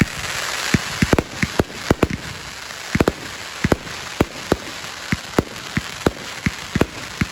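Consumer fireworks going off: sharp bangs from shots and bursts at irregular intervals, a few each second, over a steady hiss.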